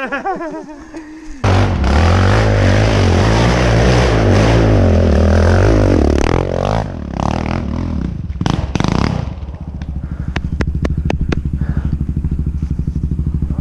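Quad bike (ATV) engine held at full throttle on a steep hill climb, cutting in loud about a second and a half in; the revs fall away near the middle, a few sharp knocks follow, and then an engine runs with a steady pulsing beat.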